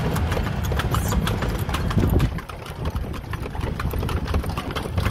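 Horse's hooves clip-clopping on the road as it pulls a two-wheeled tonga carriage, a quick run of hoof strikes over a steady low rumble.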